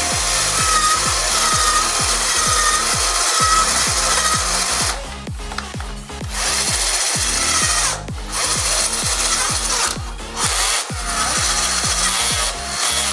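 Cordless drill/screwdriver, converted to run on a 12 V lead-acid battery through a DC-DC boost converter, running under its trigger in long bursts. It stops briefly a few times: about five seconds in, at eight and ten seconds, and near the end. Background music with a steady beat plays underneath.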